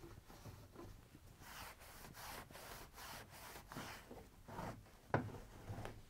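Cloth wiping the inside of a stainless steel tumble dryer drum: faint, quick repeated rubbing strokes, with a single knock about five seconds in.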